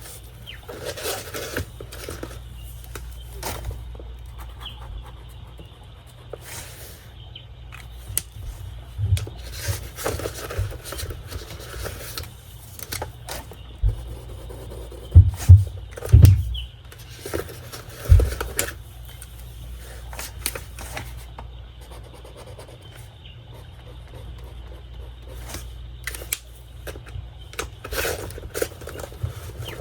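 Pens and pencils being handled on a tabletop: light scraping and rubbing, with a cluster of loud knocks about halfway through.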